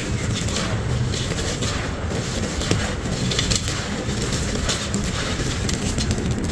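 Dry sand-cement crumbles and grit crushed and squeezed by hand in a clay pot, giving a dense, continuous run of small crunches and crackles as bits fall back into the pot.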